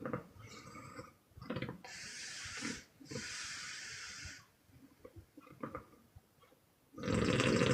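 A sleeping young woman snoring on the exhale, blowing air out in long breathy puffs: two puffs about a second and a half apart, then a louder, fluttering snore near the end.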